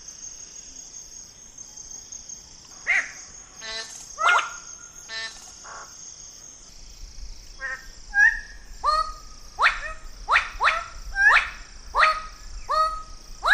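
Bird-of-paradise giving loud, short calls that fall in pitch. There are a few single calls and brief rattles, then a quickening run of about seven calls in the second half. A steady high buzz continues behind them.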